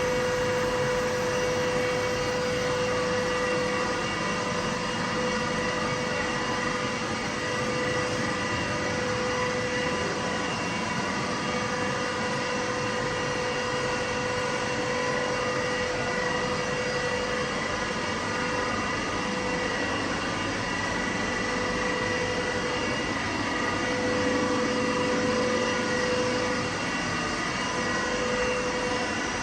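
Hurco VMX42i CNC vertical machining centre running: a steady machine noise with a held whine.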